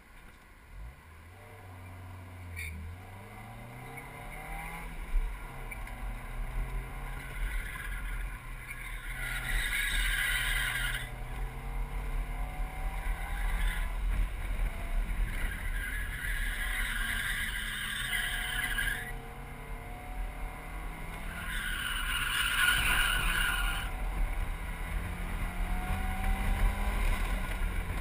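Mazda MX-5 Miata's four-cylinder engine heard from inside the open cockpit as the car pulls away and drives an autocross course. The engine note rises and falls repeatedly with acceleration and braking, grows louder over time, and has several stretches of louder hiss from the open car.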